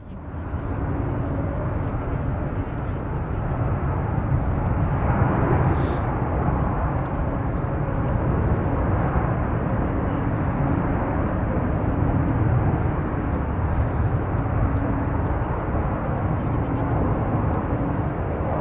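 Jet engine roar of a Boeing 747-400's four Rolls-Royce RB211 turbofans on final approach, a steady low rumble heard from the ground. It fades in at the start and swells slightly a few seconds in.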